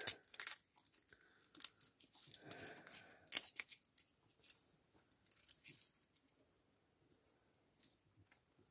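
Thin wooden kindling sticks split and torn lengthwise by hand, a series of ripping and sharp cracking sounds, the loudest crack about three and a half seconds in; quieter from about six seconds on.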